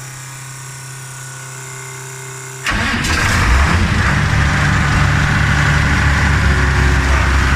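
A steady hum, then about two and a half seconds in the Case 2688 combine's diesel engine starts abruptly and keeps running, loud and steady, its repaired electric fuel lift pump now supplying it.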